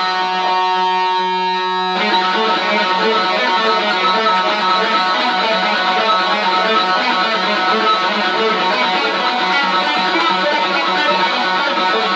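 Electric guitar played through a tape echo. A held chord rings for about two seconds, then gives way to a fast, unbroken run of picked notes.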